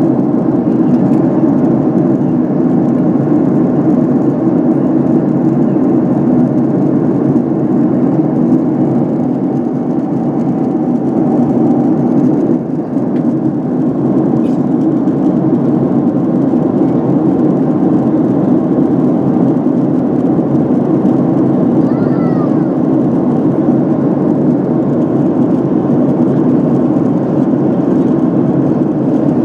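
Steady cabin noise inside a Boeing 767-300 airliner in flight: jet engines and rushing air making a constant deep drone.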